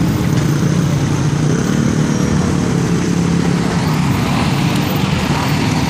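A motor vehicle engine running close by: a steady, loud low rumble, with a pitched engine tone standing out briefly around the middle.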